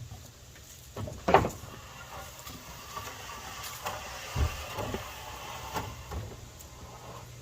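Deck repair work: one loud knock about a second in, then a stretch of scraping and several lighter knocks.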